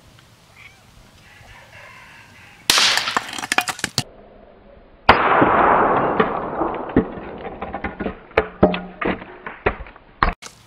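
A .22 LR rifle firing a round-nose bullet into a cow's femur: one sharp crack about three seconds in, with a quick patter of clicks as the bone breaks up. About two seconds later the shot comes again slowed down, a louder, duller crack with a long fading tail, followed by scattered sharp knocks.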